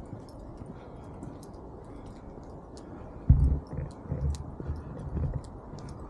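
Footsteps on a paved path at walking pace: low thuds about twice a second, starting about three seconds in and continuing, with faint scattered ticks from handling of the hand-held camera stick.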